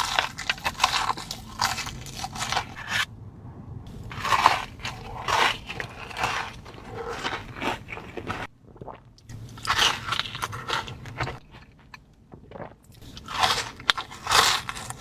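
Close-up crunching as crisp food is bitten and chewed, in about five bouts separated by brief pauses.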